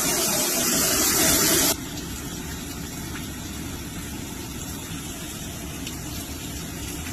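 A boat's engine running steadily with a wash of water noise. A loud hiss over it cuts off suddenly a little under two seconds in.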